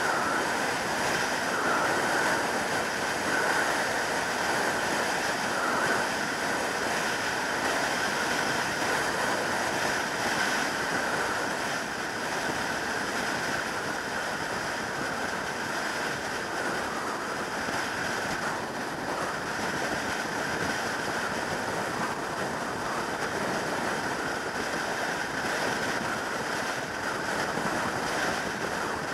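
Steady wind rush over the microphone and road noise from a 2003 Yamaha YZF600R Thundercat sport bike cruising at motorway speed. The engine does not stand out from the wind.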